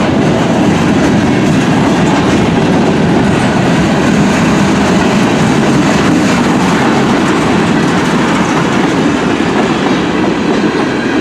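Freight train cars rolling past a grade crossing, a steady loud rumble with clattering of wheels over the rails.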